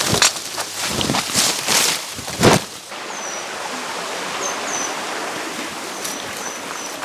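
A few loud rustles in the first three seconds, the last and loudest about two and a half seconds in. Then the steady rush of a stream, with a small bird chirping several times in short high notes.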